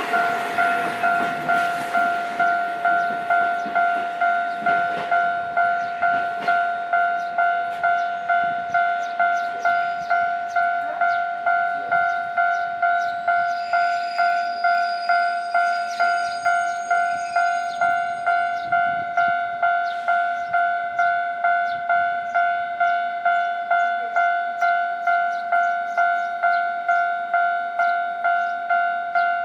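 Railway level-crossing warning bell ringing, a steady repeating ding just under two strikes a second. The rumble of a passing train fades out in the first second or two.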